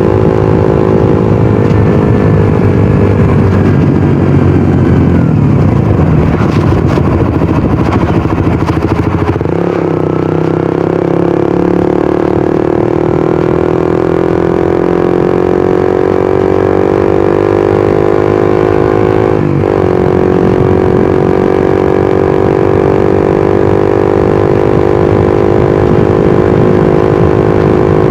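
Suzuki GSX-R150's single-cylinder engine and exhaust under way: the engine note falls for the first nine seconds or so as the bike slows, then climbs steadily for the rest, with a brief dip about two-thirds through.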